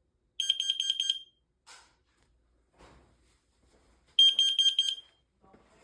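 Hardwired smoke detector's piezo alarm sounding in test mode, set off from the wall unit's push button: two short bursts of rapid, piercing high-pitched beeps about four seconds apart. A brief click falls between them.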